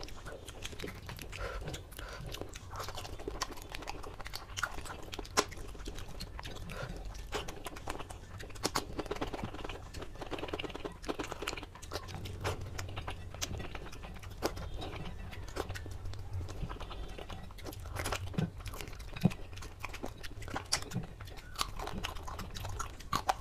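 Close-miked chewing and wet mouth sounds of a man eating rice and curry with his fingers. Irregular smacks and crisp clicks run throughout.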